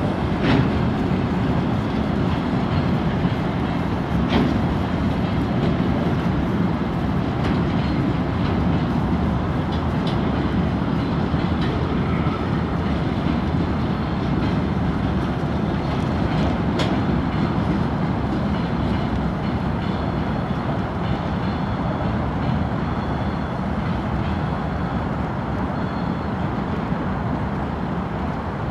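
Freight train of hopper wagons rolling past: a steady rumble of wheels on rail with a few sharp clanks, fading slowly toward the end as the last wagons go by.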